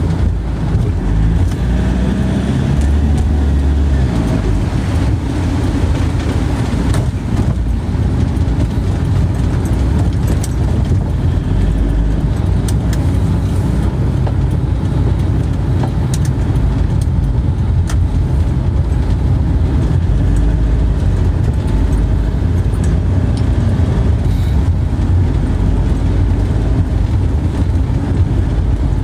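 Car on the move: a steady low rumble of engine and road noise with a few faint ticks.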